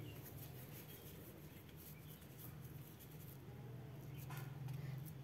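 Faint rustling and rubbing of hands pressing and rolling a ball of stiff wheat-flour dough between the palms, over a steady low hum.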